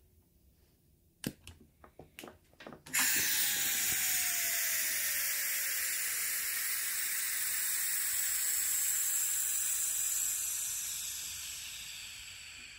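A few clicks from the brass fittings and ball valve being handled, then a sudden loud hiss of compressed air rushing out of a homemade air compressor's tank through the open outlet valve. The hiss holds steady, with a faint whistle falling in pitch at first, and fades near the end as the tank pressure drops.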